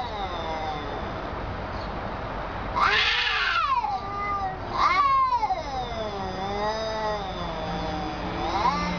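Two domestic cats yowling at each other in a territorial standoff: long, wavering caterwauls that slide up and down in pitch. There is a sharper, louder yowl about three seconds in and another about five seconds in, and a lower drawn-out moan underneath near the end.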